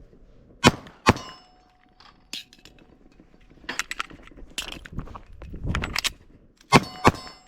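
Two gunshots about half a second apart, the second followed by a ringing tone. A clatter and clicks of a magazine reload come next, with a magazine dropped, then two more shots in quick succession near the end.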